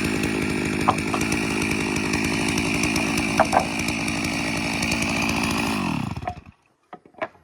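Stihl 660 Magnum two-stroke chainsaw, about 92 cc, running steadily at high revs in an Alaskan chainsaw mill milling a log. The sound cuts off about six seconds in.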